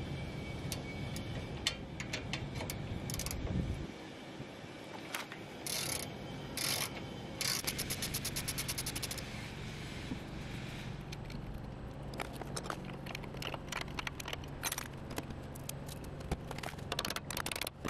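Metal clicks and clinks of hand tools working at a Honda Civic's lower control arm ball joint. About seven seconds in comes a fast run of clicks lasting under two seconds, and clusters of clicks follow near the end.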